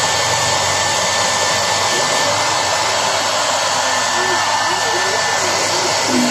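Hair dryer (blower) running steadily: an even rush of air with a thin, steady whine at a constant level, used to dry a freshly bathed shih tzu.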